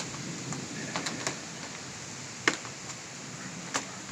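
Sharp, irregular clicks from handling the phone, three close together about a second in and two louder ones later, over a steady hiss of storm wind.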